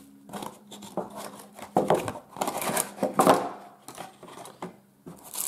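Hands handling plastic packaging: irregular rustling and crinkling with small clicks, loudest about two and three seconds in.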